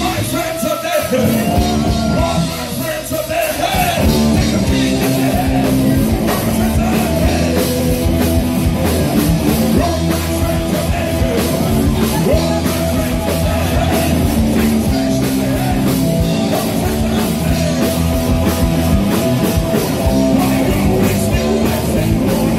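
Live rock band playing: electric guitars, bass and drum kit, with a male singer.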